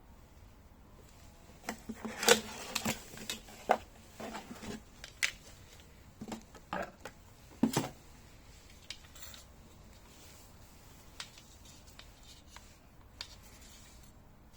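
Hands handling an angle grinder, its parts and packaging: a run of sharp clicks, knocks and rustles from about two to eight seconds in, then a few single clicks.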